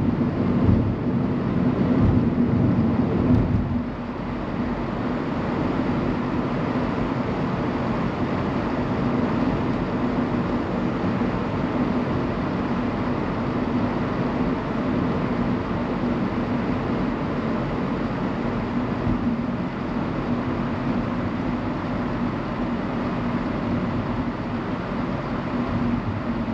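Car driving at road speed, heard from inside the cabin: steady tyre and road noise with a low hum. It is louder, with a heavier low rumble, for the first few seconds and eases about four seconds in.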